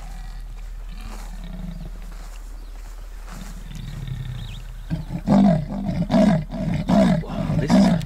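An animal roaring in a run of loud, repeated calls that start about five seconds in, after a quieter stretch of outdoor ambience.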